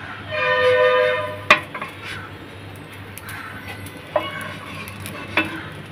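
Wooden spatula scraping and knocking on a nonstick tawa as set dosas are lifted off, with sharp clicks at about one and a half, four and five seconds in. Near the start a steady tone rings for about a second.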